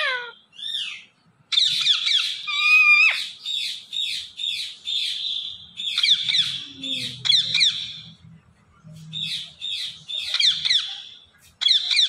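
Rose-ringed parakeet (Indian ringneck) chirping and squawking: quick runs of sharp, high notes in several bursts with short pauses between them.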